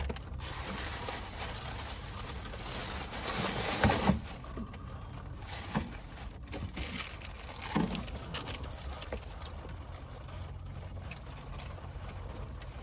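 Rain falling, an even hiss of raindrops, with a few brief knocks about four and eight seconds in.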